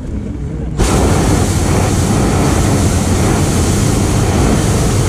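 Hot-air balloon's propane burner firing: a loud, steady rushing blast that starts abruptly about a second in and holds without a break.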